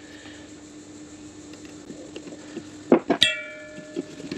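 Light metallic clicks and scrapes of a screwdriver working the retaining clip on a park-brake shoe. About three seconds in, a steel screwdriver drops onto the concrete floor with a sharp clang that rings for about a second.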